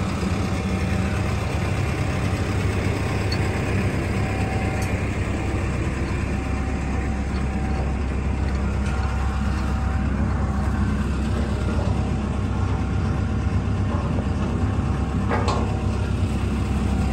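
A heavy engine idling steadily with a low rumble, with a couple of faint clicks.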